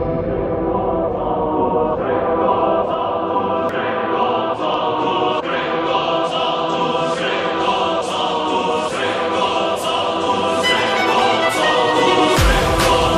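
Background music with choir-like singing over a steady beat; a deep bass comes in near the end.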